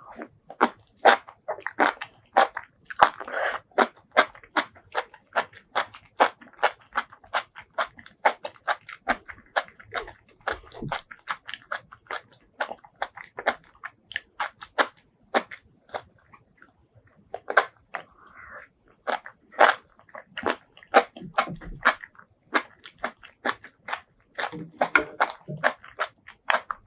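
Close-miked eating sounds: chewing and biting into food in a fast, uneven run of crisp clicks and crunches, with a brief lull a little past halfway.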